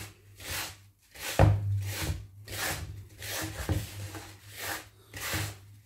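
Hands rubbing oiled fine semolina against the sides of a woven wooden bowl, a rasping swish repeated about twice a second.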